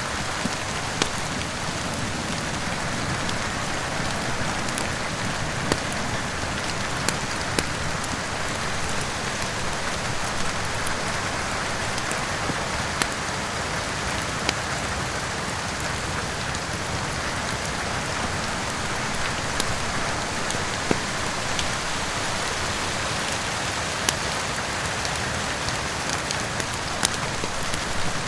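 Steady rain with a crackling wood fire: an even hiss of rainfall, with sharp pops scattered through it every second or so.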